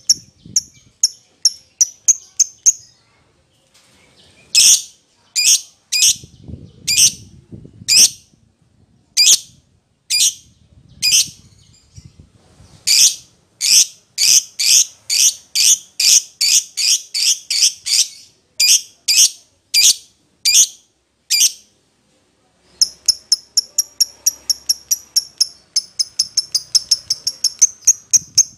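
Lovebird singing in sharp, high chirps: a quick run at first, then single loud calls that speed up to two or three a second in the middle, and after a short pause a rapid ticking series of about five a second. It is the excited, aggressive song of a fighter-type lovebird.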